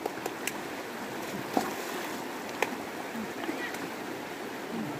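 Shallow river running over stones, a steady rush of water, with a few short sharp clicks and splashes from people wading in it.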